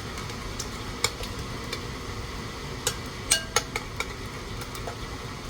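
A spoon stirring a thick mayonnaise-and-mustard dressing in a bowl, with a few sharp clinks of the spoon against the bowl, most of them bunched together in the middle.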